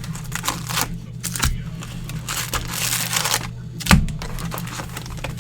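Plastic rustling and crinkling from trading cards and their wrappers and sleeves being handled, with a sharp knock about four seconds in. A steady low hum runs underneath.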